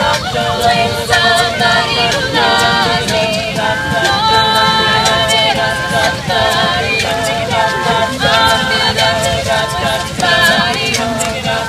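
A small mixed group of singers performing a cappella, several voices holding chords in harmony that change about once a second.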